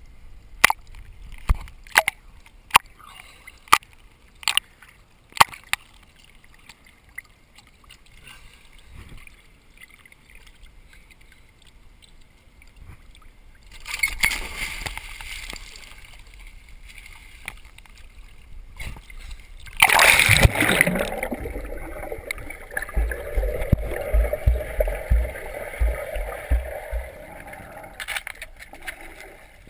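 Sharp clicks several times in the first few seconds, then a dog splashing into a swimming pool about two-thirds of the way through, followed by water sloshing and splashing for several seconds.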